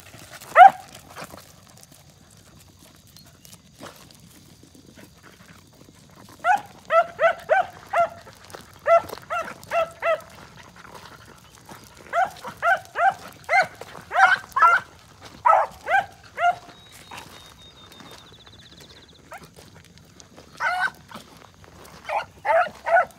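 Beagle barking: one loud bark about half a second in, then several quick runs of short, high barks at about three or four a second, broken by pauses of a few seconds.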